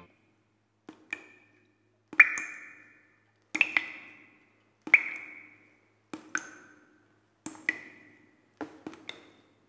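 A slow run of short, ringing percussive pings and taps, roughly one a second and some in quick pairs, each dying away over about half a second, with dead silence between them.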